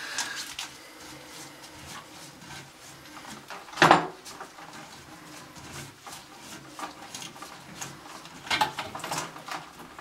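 Hard plastic toilet-tank parts clicking and knocking against the porcelain tank as a hand works at the fill valve, with one sharp knock about four seconds in and a cluster of knocks near the end.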